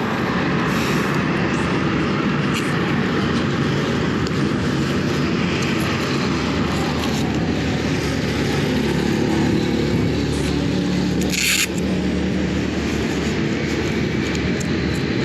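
Benelli TNT 300's parallel-twin engine running through its stock exhaust while being ridden, with a short hiss about eleven and a half seconds in.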